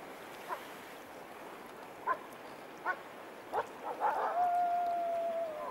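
Wild wolf calling: four short barking yelps, then a long, steady howl starting about four seconds in, sinking slightly in pitch.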